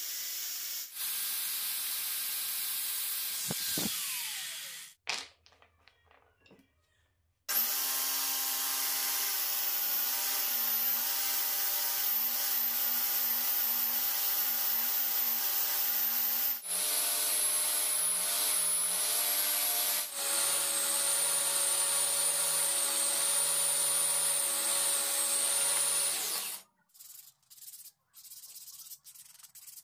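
A cordless drill spins a wooden knob against a sanding disc, then winds down about four seconds in. After a short pause, a narrow vertical belt sander runs steadily as a wooden clamp piece is shaped against the belt. Near the end come a few short hand strokes of sandpaper on wood.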